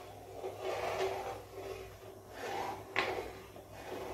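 Metal slotted ladle stirring thick milk paayasam in a metal pot, scraping and swishing around the bottom and sides in repeated strokes, with a sharp clink about three seconds in. The milk is just coming to the boil.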